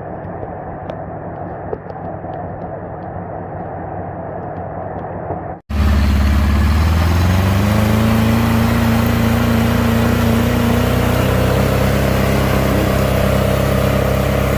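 Off-road 4x4 engine running, muffled, then after an abrupt cut about six seconds in, a louder engine whose revs climb and then hold steady at high revs.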